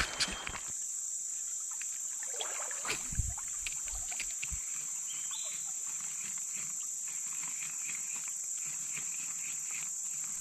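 Steady, high-pitched drone of insects, likely a tropical chorus of cicadas or crickets. In the first few seconds there are a few knocks and water sounds from wading and handling.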